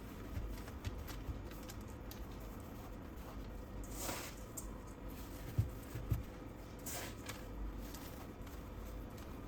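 Faint kitchen food-prep handling: a few short rustling hisses and two soft, low knocks a little past the middle, over a low background rumble.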